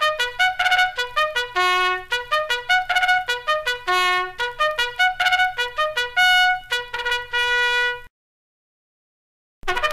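Army bugle call: a quick run of short, crisply tongued notes jumping among a few pitches, cutting off about eight seconds in. After a brief silence the call starts again just before the end.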